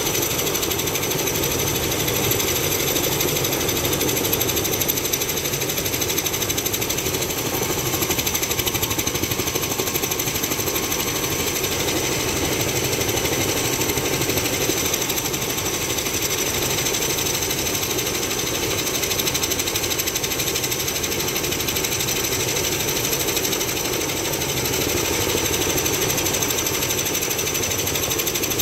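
Helicopter running close by: rapid, steady beating of the rotor blades with a steady high whine over it.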